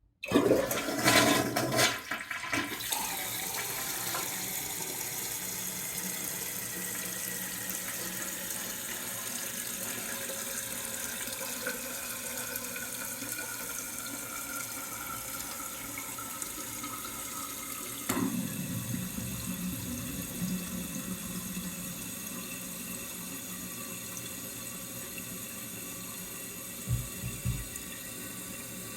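Toilet flushing: a loud rush of water for about three seconds, then the tank refilling with a steady hiss and a faint whistling tone that slowly falls in pitch. About 18 seconds in the sound changes with a brief knock, and there are a couple of low thuds near the end.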